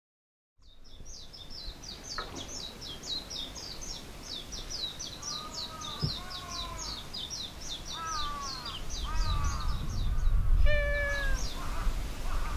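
Rapid high chirping, about five or six notes a second, with several short arched calls in the middle. About eleven seconds in a domestic cat gives a drawn-out, falling meow over a low rumble of wind.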